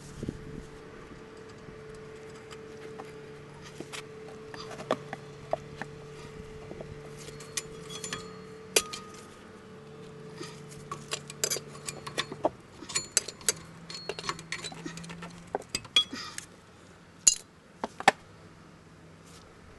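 Irregular metallic clinks and taps of a hand tool against a car's rusty rear drum brake assembly, coming thicker in the second half, with two sharp clinks near the end. A steady low hum runs underneath and shifts in pitch about two-thirds of the way through.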